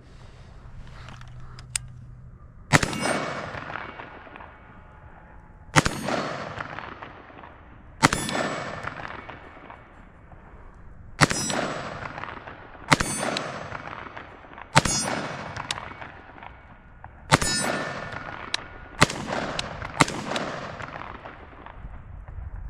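AR-15 pistol fired in single shots, nine in all at an uneven pace one to three seconds apart, each shot followed by a long echo that dies away.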